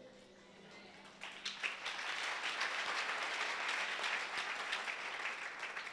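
A church congregation clapping and applauding, faint at first and building up about a second in, then holding steady.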